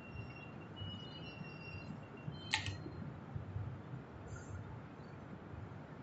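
A single light metallic click from a T-handle hex key about two and a half seconds in, over the steady low hum of a large room.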